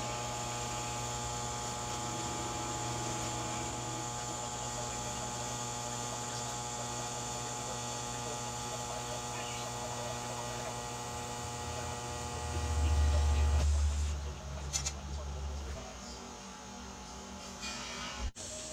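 TIG welding arc: a steady electrical hum with many even overtones, which stops about two-thirds of the way through. A short, loud low rumble comes just before the hum stops.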